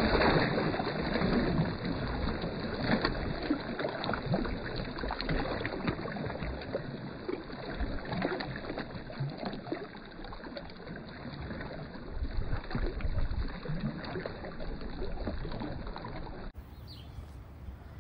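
Water splashing and churning in slow motion as a released channel catfish hits the shallow water among rocks and swims away; loudest at the start, then a long tail of sloshing and lapping that fades, with the top end missing.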